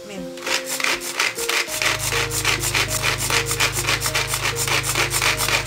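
Pull-cord manual food chopper being yanked over and over to mince onion. Its blades whirl and rasp against the plastic bowl in quick strokes, about three or four a second.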